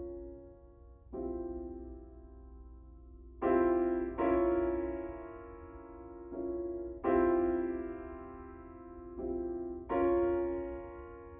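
Slow, soft piano music: sustained chords struck every second or two and left to ring and fade.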